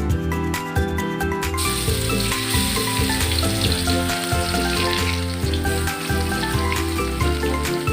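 Hot oil sizzling in a wok as food fries, starting suddenly about a second and a half in, over background music.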